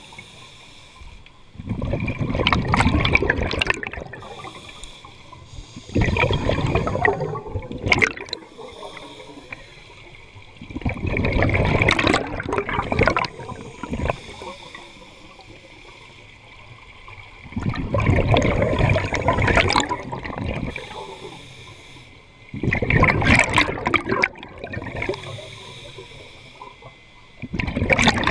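Scuba regulator exhalations heard underwater: a bubbling rush of exhaust bubbles every five seconds or so, six breaths in all, each lasting two to three seconds, with quieter stretches between.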